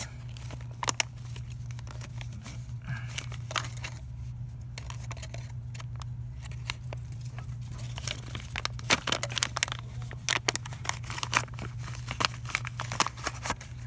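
Plastic retail packaging being torn open and crinkled by hand: scattered crackles at first, then a dense run of crinkling and tearing over the last few seconds. A steady low hum sits underneath.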